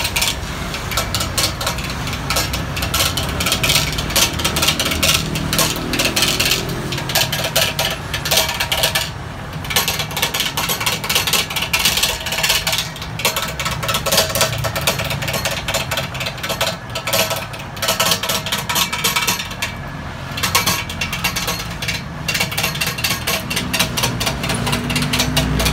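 Large wood lathe turning a 40 cm-diameter timber stair post while a hand-held turning chisel roughs it down, the tool knocking and scraping rapidly against the still-squared corners of the blank. The cutting noise eases off briefly a few times as the tool is lifted or moved along the rest.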